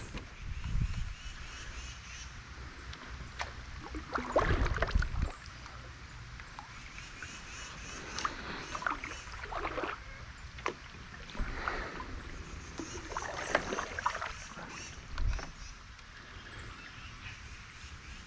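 Knocks and thumps from a kayak, with gear being handled against the hull and small clicks. A few louder low thumps come early, around a third of the way through, and near the end.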